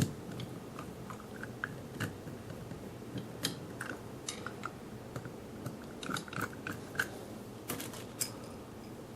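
Faint, scattered small clicks and ticks of a Phillips screwdriver backing out small screws and of metal light-fixture parts being handled.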